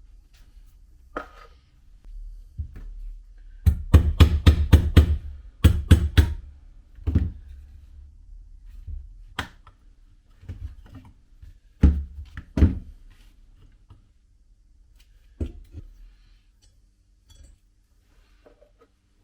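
Hard knocks and taps in a small room. A quick run of about six strikes comes about four seconds in, followed by scattered single and double knocks that thin out toward the end.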